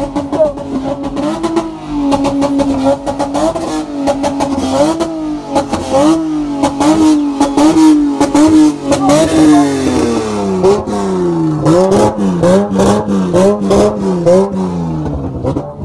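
A car engine is held at high revs during a spin. Its pitch rises and dips over and over as the throttle is worked. About ten seconds in the revs slide lower and go on bouncing in the same rhythm.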